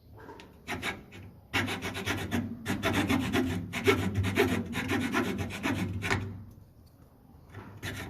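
Hand filing on a car's metal hood prop rod: quick back-and-forth rasping strokes, about four a second. The strokes start about a second and a half in, stop for about a second and a half near the end, then start again.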